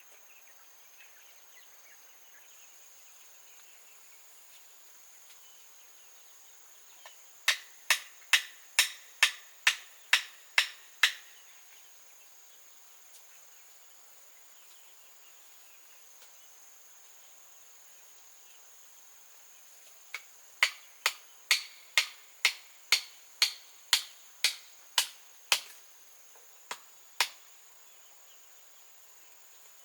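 Hand-tool strikes in two runs, the first of about nine and the second of about fourteen, roughly two a second, with a steady high insect drone underneath.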